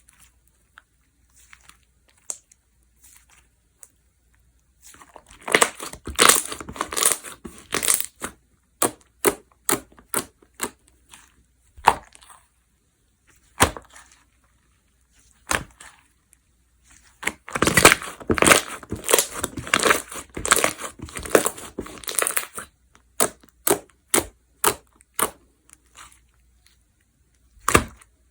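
Jiggly slime being squeezed and pressed by hand, giving sharp crackly clicks and pops. They come in two dense flurries, about five and seventeen seconds in, with scattered single clicks in between.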